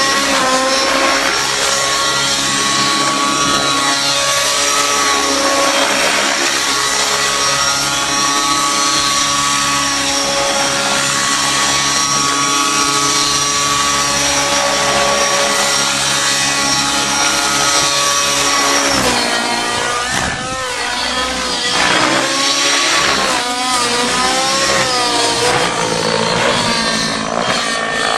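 Align T-Rex 700 radio-controlled helicopter, its nitro glow engine and rotor blades running hard in aerobatic flight. A steady engine whine holds its pitch for most of the time, then wavers repeatedly up and down after about nineteen seconds as the helicopter manoeuvres.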